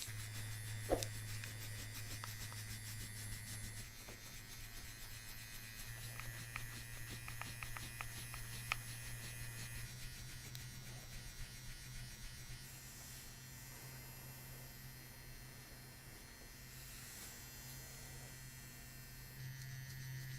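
Handheld electric massage device buzzing steadily with a low hum, its level shifting every few seconds. A few faint clicks come through it.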